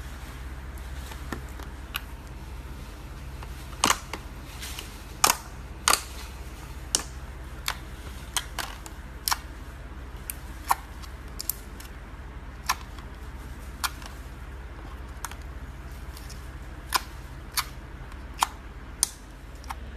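Gold slime being squeezed and stretched by hand, giving off irregular sharp pops and clicks as air pockets burst, about one a second, the loudest a few seconds in.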